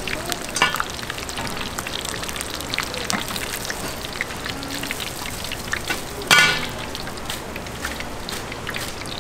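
Food frying in hot oil: a steady crackling sizzle. One brief, louder sound cuts through about six seconds in.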